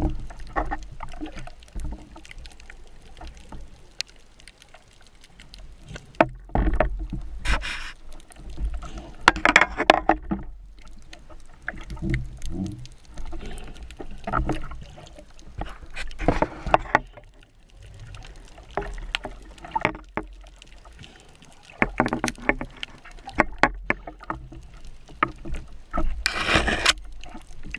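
Water sloshing and bubbling as picked up by a camera just under the surface, with irregular knocks and a few louder rushes of water every several seconds.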